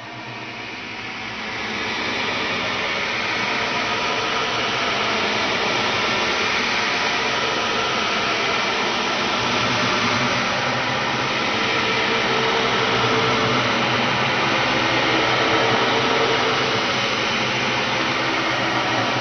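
A dense, harsh noise drone made as a horror sound effect. It fades in over about the first two seconds, then holds steady, with faint steady tones buried in it.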